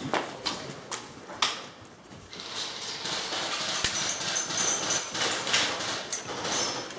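Scattered sharp cracks of airsoft guns firing, a few single shots over a rustling, hissing background of movement.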